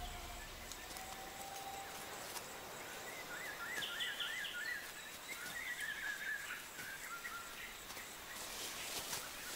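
Quiet rainforest ambience. Near the middle, a bird calls in a quick run of rising-and-falling chirps, with a brief higher trill, and faint scattered clicks and rustles run through it.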